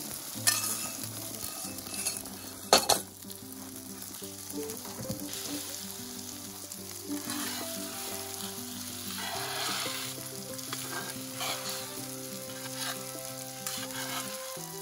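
Beaten eggs sizzling in a hot Lodge carbon steel skillet while a flat metal spatula scrapes and stirs them around the pan. Two sharp knocks, about half a second and three seconds in, are the loudest sounds.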